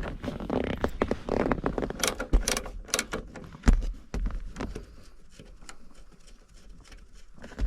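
Old-school ratcheting wrench clicking in quick, uneven strokes as it backs off a nut, with a few sharper metal knocks. The clicking stops about halfway through, leaving only faint handling sounds.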